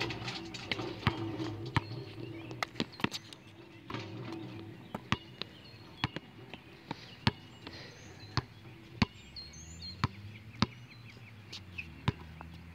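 Basketball being dribbled on a hard outdoor court: a run of sharp, irregularly spaced bounces, with faint bird chirps in the middle.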